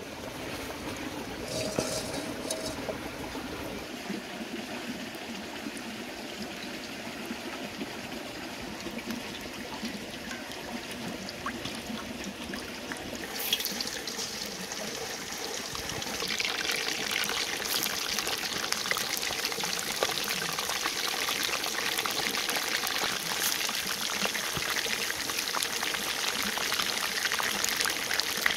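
A soft hiss of oil heating in a wok. About halfway through, frogs are slid into the hot oil and set off a frying sizzle that grows louder and crackles steadily as they deep-fry.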